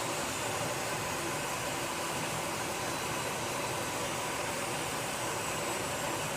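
Gas hissing steadily as it escapes, a continuous even whoosh with no change in level.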